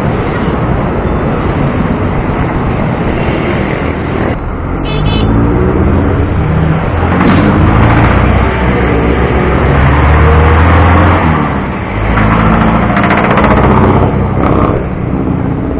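Traffic noise heard while cycling on a road: steady rushing noise for the first few seconds, then a motor vehicle's engine running close by from about four seconds in, rising and falling in pitch. Its low rumble is loudest a few seconds before the end.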